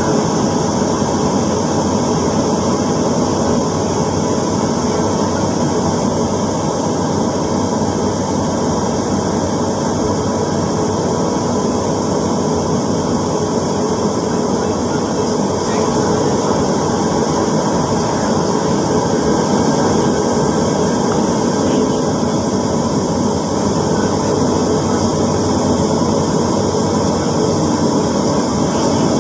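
MRT Line 3 train running at speed, heard from inside the passenger car: a steady, loud rumble of wheels on rails with a constant hum over it.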